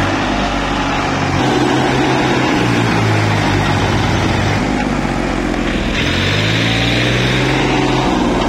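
Massey Ferguson 241 DI tractor's three-cylinder diesel engine revving hard under load as the tractor strains to climb out of a sandy pit. The engine pitch rises about a second and a half in and again about six seconds in.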